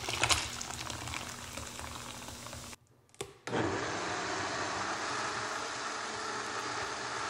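Liquid trickling through a mesh strainer for the first few seconds. After a brief cut, a Vitamix high-powered blender runs steadily, pureeing fermented peppers with their brine into hot sauce.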